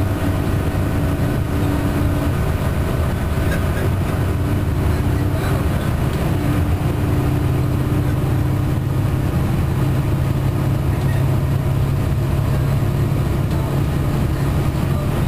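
Cummins ISM inline-six diesel of an MCI D4500CT coach running at highway speed, heard from inside the passenger cabin over steady tyre and road noise. The engine's low drone steps up a little in pitch about halfway through.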